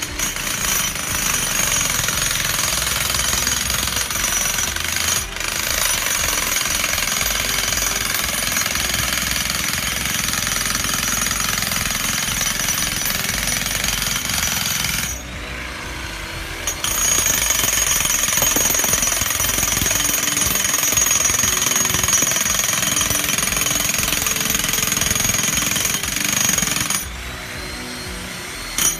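Electric demolition hammer with a long pin-driving extension, hammering steel pins down through a concrete pier footing into the ground. It hammers steadily, stops for about two seconds roughly halfway through, runs again, and stops once more near the end.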